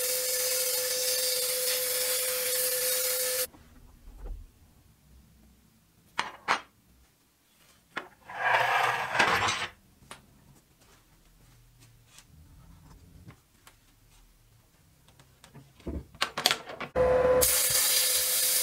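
Sandblasting cabinet blast gun spraying abrasive onto rusty gun parts: a loud, steady hiss with a constant whistling tone, which stops after about three and a half seconds. A few scattered clicks and a short burst of hiss follow, and the blasting hiss starts again near the end.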